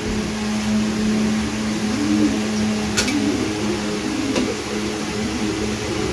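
A steady mechanical hum, with a few light clicks of small metal airgun parts being handled, about three seconds in and again about a second and a half later.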